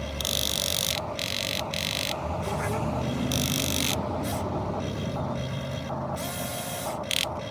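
Radio-controlled model excavator's small electric motors and gearboxes whirring in short stop-start bursts as its controls are worked, over a steady low hum.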